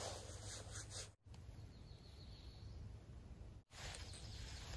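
Quiet forest ambience with a low rumble and faint rustles. The sound drops out abruptly twice, about a second in and again after three and a half seconds.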